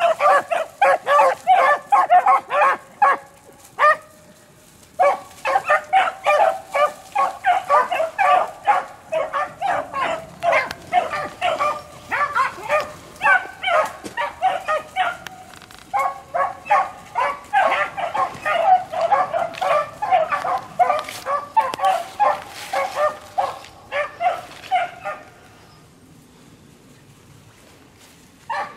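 A pack of beagles baying in chorus while running a rabbit, several hounds overlapping in quick, pitched bawls. The chorus breaks off for about a second about four seconds in and again briefly around fifteen seconds, then dies away a few seconds before the end, with a single short call at the very end.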